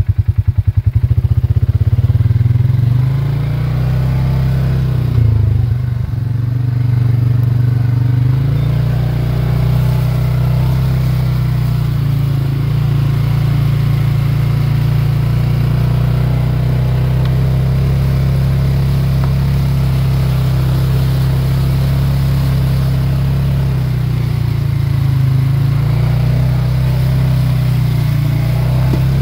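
ATV engine running at low speed, a steady low drone heard from the rider's seat, with small rises and dips in its note.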